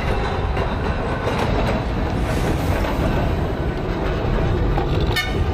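Blackpool's illuminated 'Western Train' tram, built as a steam locomotive pulling a carriage, running past on the street tramway with a steady rumble of wheels on rail. A short sharp click comes about five seconds in.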